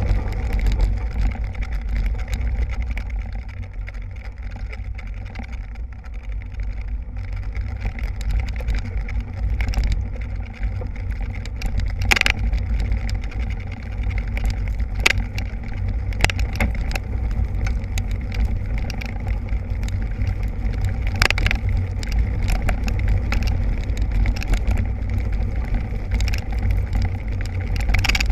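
Kite buggy rolling fast over dry dirt: a steady low rumble from the wheels and the wind on the buggy-mounted microphone, with several sharp knocks from the frame along the way.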